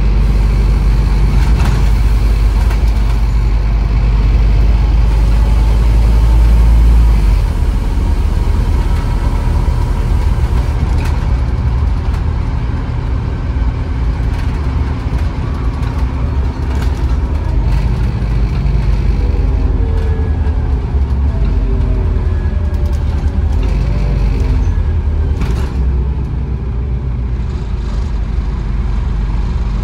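Scania N230UB OmniCity bus's five-cylinder diesel engine running under load. It is loudest for the first seven seconds, then eases and shifts in pitch as the bus changes speed. A few sharp clicks and rattles come through.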